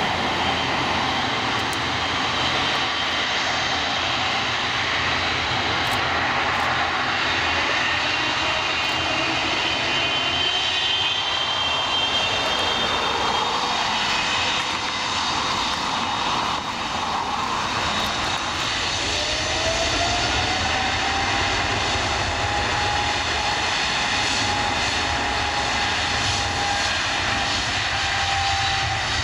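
Airliner engines running loud and continuous, with a whine that rises about two-thirds of the way through and then holds steady.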